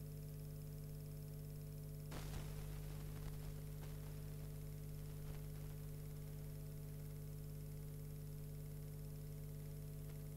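Steady electrical mains hum with background hiss, with a brief crackle about two seconds in and a few faint clicks after it.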